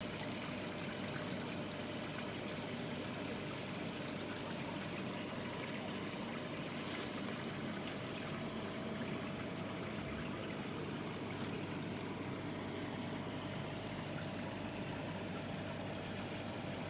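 Steady running and trickling water in a koi pond, with a faint steady hum underneath.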